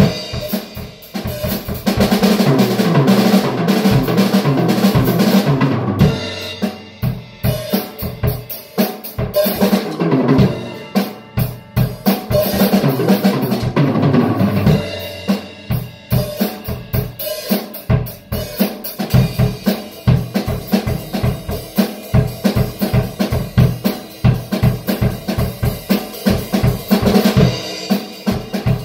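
Drum kit played solo: rapid snare and tom fills over bass drum, with rimshots and crashing cymbals coming in and out.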